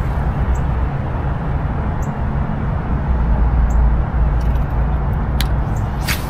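Steady rumble of road traffic crossing the bridge overhead, with two sharp clicks near the end.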